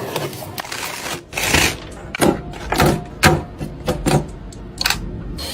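Computer parts being handled during a PC build: a string of irregular plastic and metal clicks and knocks, with rubbing and rustling in between.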